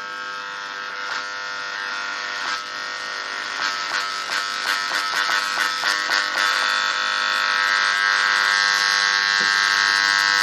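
Old valve radio's speaker giving out a steady buzzing hum that grows louder as the set comes to life on reduced mains, with a spell of crackles about halfway through. It is the first output of a set still on its original filter capacitor.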